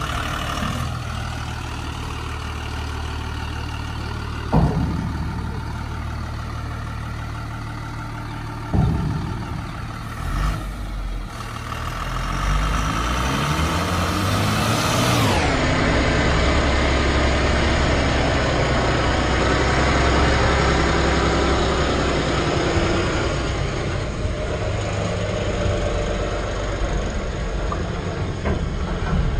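Tata 1618 4x4 tipper truck's diesel engine idling, with two short sharp sounds about four and nine seconds in. The engine pitch then rises and falls as it revs, and from about halfway it runs louder and steadier under load.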